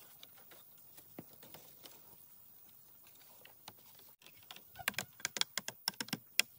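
Split bamboo strips clicking and knocking against each other and against the bamboo stakes as a round bamboo trap is woven by hand. Faint scattered ticks at first, then, about two-thirds in, a quick run of sharp clicks and rattles lasting about a second and a half.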